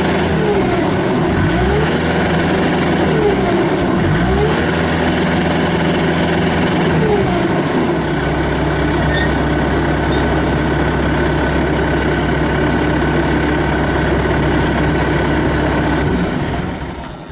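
Bobcat S250 skid steer's Kubota turbo diesel running steadily, with a whine that falls and rises a few times in the first half. The engine sound drops away near the end as the machine is shut down.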